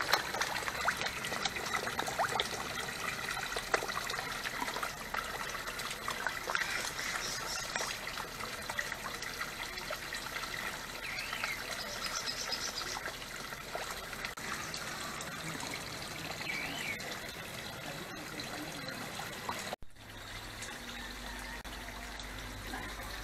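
Water pouring from inlet pipes into a concrete koi tank, a steady splashing trickle. It drops quieter about twenty seconds in.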